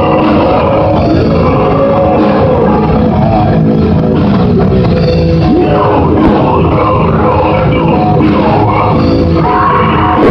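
Live djent band playing a loud heavy metal song: distorted guitars, bass and drums, heard through a muffled, poor-quality recording that cuts off the high end.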